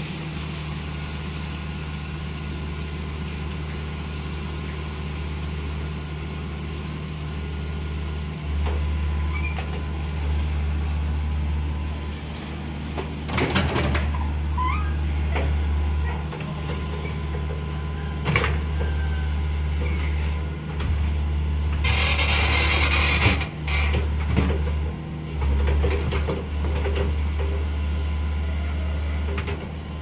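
Mini excavator's diesel engine running steadily while it digs mud, getting louder as the hydraulics take load. A few metallic clanks from the bucket and boom, and a hiss lasting about a second and a half around two-thirds of the way through.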